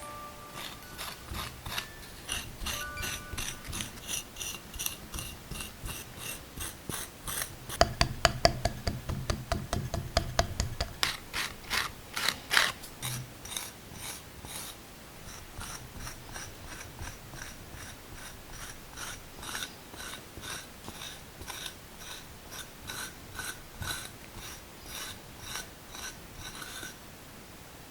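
A hand tool working clay in short, repeated scraping strokes, about two a second. About eight seconds in, a faster, louder run of clicks lasts a few seconds.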